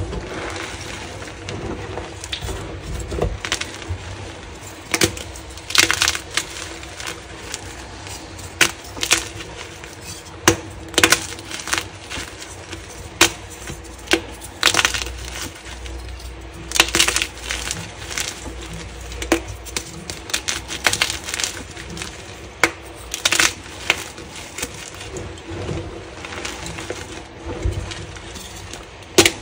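Dyed gym chalk blocks crunched and crumbled by hand into a heap of loose chalk powder: sharp, irregular snaps as chunks break, over a steady grainy crunch of powder and fragments being squeezed and stirred.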